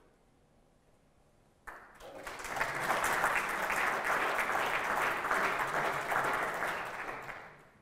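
Audience applauding at the end of a talk. The applause starts suddenly about two seconds in, swells quickly and fades out near the end.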